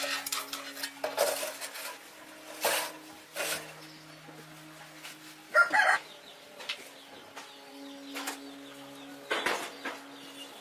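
Scattered sharp knocks and clatter, with a louder burst about halfway through, over a steady low hum.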